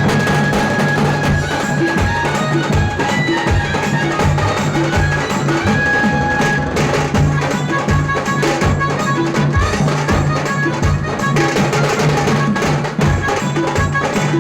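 Tasa band playing: rapid, dense tasha drum strokes over heavy bass-drum beats, with an electronic Casio keyboard carrying the melody in held, high notes.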